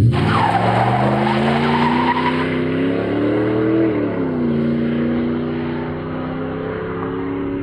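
Ford SVT Lightning's 5.8 L V8, breathing through a Bassani catless off-road mid-pipe and rear-exit stainless cat-back, accelerating hard away from a standstill. The exhaust note rises in pitch, dips at a gear change about four seconds in, then pulls again. A brief tyre squeal comes at the launch.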